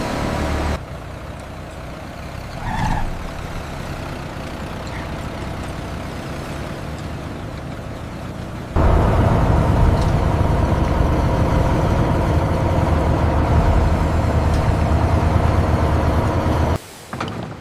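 A heavy vehicle's engine running steadily, in three abruptly cut segments; the last is the loudest and starts about nine seconds in.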